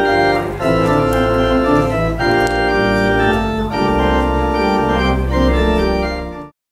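Organ playing sustained chords that change every second or so, with a deep pedal bass note coming in about four seconds in. The music cuts off abruptly near the end.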